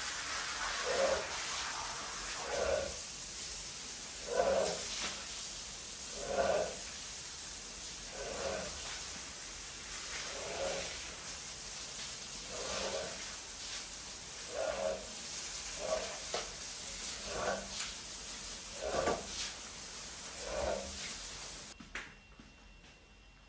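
Rubber squeegee dragged in repeated strokes across a water-soaked rug, a short wet swish about every two seconds, about a dozen strokes. A steady hiss of spraying water runs underneath and cuts off suddenly near the end.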